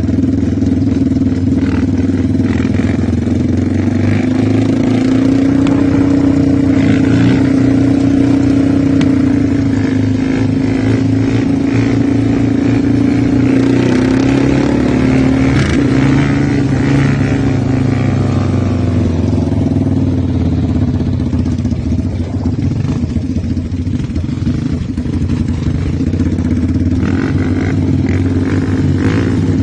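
Engine of a 450 quad (ATV) running steadily, its pitch rising and falling slightly as the throttle changes.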